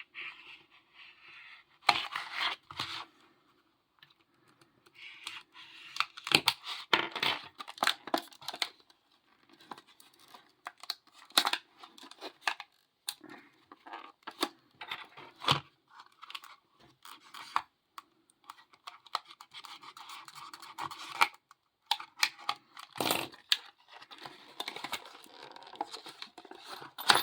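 Retail packaging of a padlock being torn and pried open by hand: irregular tearing, scraping and crinkling with many sharp cracks and short pauses.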